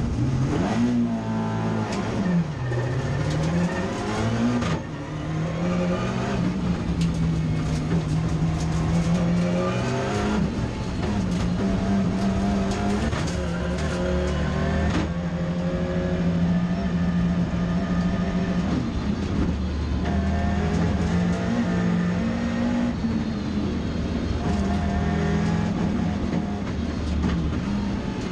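Competition car's engine at full effort, heard from inside the cabin. The engine note dips and climbs about two to four seconds in, then runs hard and fairly steady, with sudden shifts in pitch around five, ten and fifteen seconds in.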